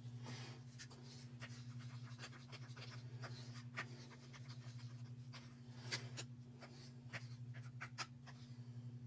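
Acrylic paint being stirred in small cups: faint, irregular scraping and tapping of the stirrer against the cup, over a steady low hum.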